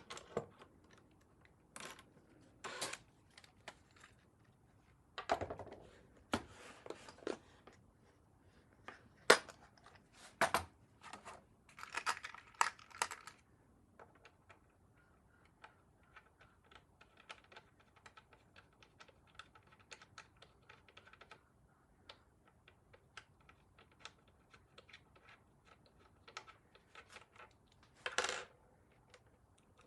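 Small objects being handled: irregular light clicks, taps and short rustles, busiest in the first half, then sparse faint ticks with one more rustle near the end.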